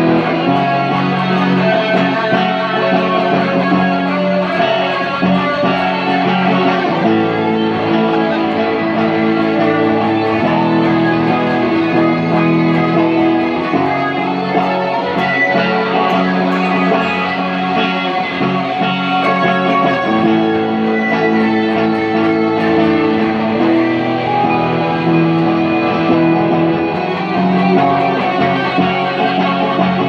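Acoustic guitar played solo, with ringing chords that change every few seconds.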